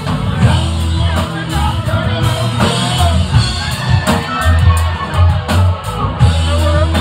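Live rock band playing amplified in a bar: electric guitars over a heavy bass line and drum kit.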